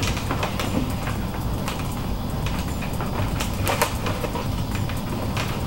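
Handling noise from a folding softbox being assembled: the nylon fabric rustles and the flexible frame rods scrape and click as a rod is bent into a corner pocket, tensioning the fabric. A few scattered clicks, several close together around the middle, over a steady low background hum.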